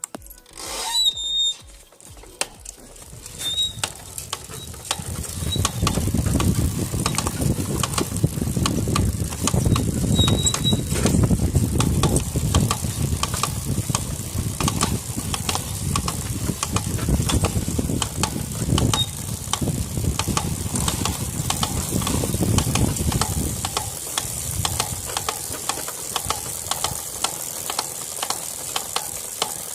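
Honda Titan 150 motorcycle coasting downhill with the engine off: wind and tyre-on-road noise that builds over the first few seconds and eases somewhat near the end, with a steady run of rapid clicks. The rider is listening for a rear-wheel noise that he thinks is more likely a loose rear wheel bearing than the chain and sprocket kit.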